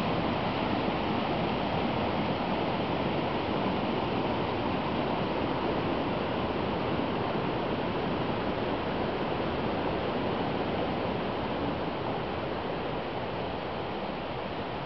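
Brook cascading over a series of small falls, running high with spring flood water: a steady, even rush that eases slightly near the end.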